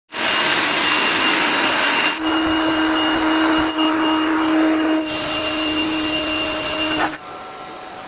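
Cordless battery air blower running: a loud rush of air over a steady motor-fan whine. The tone of the whine shifts at about two and five seconds in. The blower cuts off about a second before the end, leaving a much quieter steady sound.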